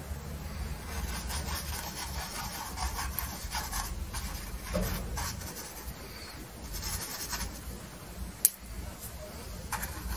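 A paintbrush scrubbing oil paint onto canvas, a dry rubbing scratch that comes in bouts of strokes. A single sharp tick about eight seconds in.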